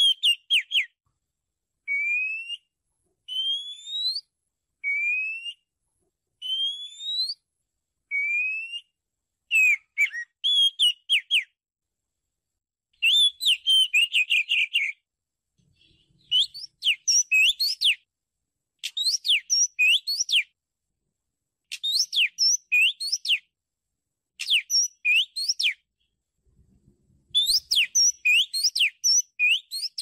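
Oriental magpie-robin singing: first a run of clear rising whistles, about one every second and a half, then quicker phrases of varied sweeping, down-slurred notes. The song comes in short bursts with brief pauses between them.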